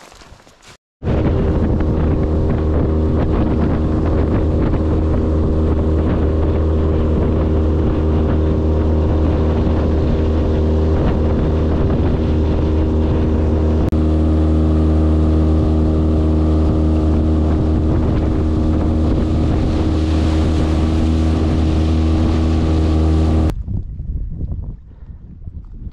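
Outboard motor running at a steady, even speed, pushing a small boat along a river, with wind on the microphone. It starts abruptly about a second in and cuts off suddenly near the end.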